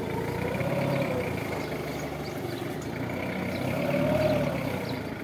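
Linde forklift running as it carries a raised pallet of crates, its pitch swelling up and back down twice, about a second in and again around four seconds in.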